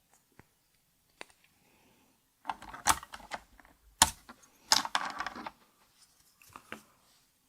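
Small hard plastic keyboard parts, keycaps, clattering and clicking as they are handled and set down, in irregular bursts, the loudest just past the middle.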